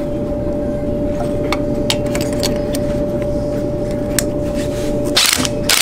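A loud, steady machine hum with one constant tone, with light metallic clicks as a blow-off valve is fitted by hand to intercooler piping. A loud burst of hiss comes near the end.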